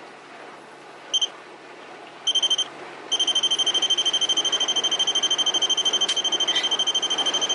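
High-pitched electronic alarm beeping: a short double beep, a quick burst of beeps, then rapid continuous beeping, about ten beeps a second, from about three seconds in.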